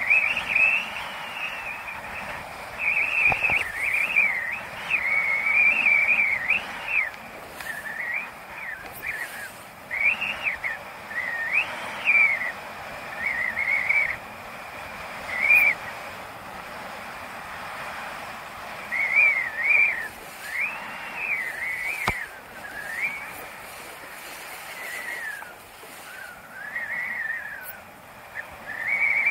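A person whistling a wavering tune in short, rising and falling phrases with gaps between them, over a steady rush of wind and water.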